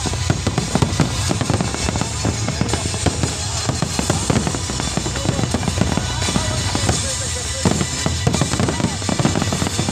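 Fireworks display with dense, overlapping bangs and crackling bursts, over music playing underneath.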